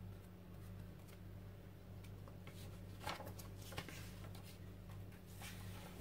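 Faint brushing and rustling of torn paper scraps as glue is worked over them with a flat brush, with a few light taps around the middle, over a steady low hum.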